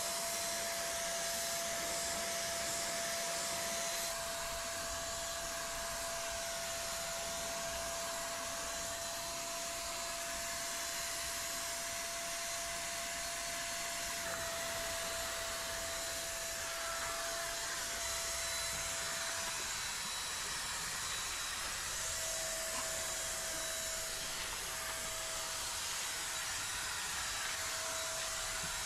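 Electric handheld paint spray gun running while spraying: a steady motor whine over an even, airy hiss.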